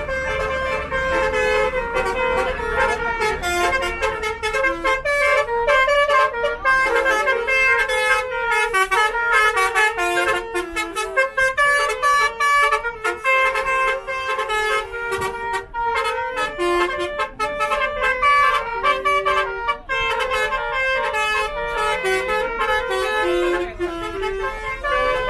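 Basuri multi-tone 'telolet' bus horn playing a tune in quick stepping notes, on and on with only brief gaps.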